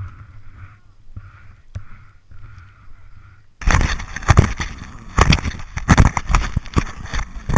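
Loud scraping, rubbing and knocking of fabric and backpack straps against a helmet-mounted camera starts suddenly about three and a half seconds in. Before that there is only a faint on-and-off whirring from the Smith turbofan.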